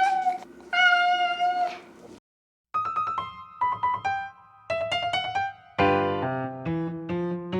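Background music with electric piano or keyboard notes, dropping out briefly a little over two seconds in, then picking up again with a steady, bouncy chord rhythm.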